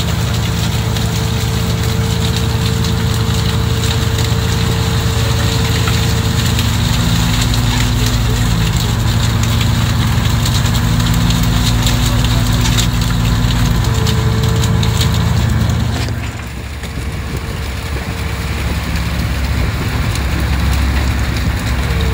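A fishing boat's machinery runs with a steady low hum and a held whine, over a dense crackle of many fish flapping and slapping on the deck as the net spills its catch. The low hum drops away for a few seconds about three-quarters of the way through, then comes back.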